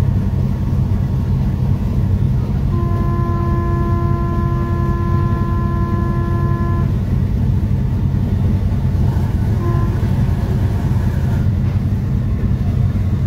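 A ferry's horn sounds one steady blast of about four seconds, starting about three seconds in, with a brief faint toot near ten seconds: a departure signal. Underneath, boat engines keep up a heavy low rumble.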